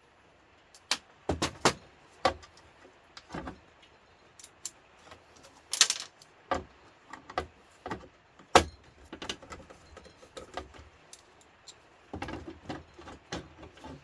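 Irregular metallic clinks and knocks of a George Foreman grill being taken apart by hand, with a quicker flurry of clatter near the end.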